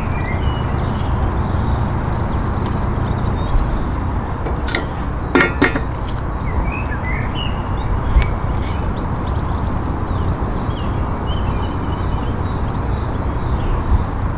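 Steady outdoor rushing noise with small birds chirping faintly through it and a few sharp clicks.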